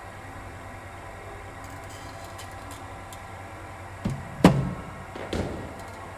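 A cricket ball struck during bowling-machine batting practice: a few sharp knocks about four seconds in, the loudest a single crack with a short ring, then a duller thud, over a steady low hum.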